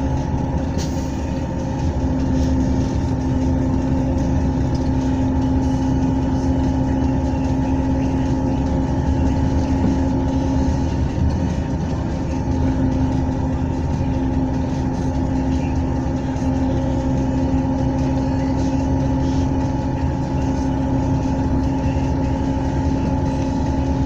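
A large engine or machine running steadily with a constant drone that holds the same pitch throughout.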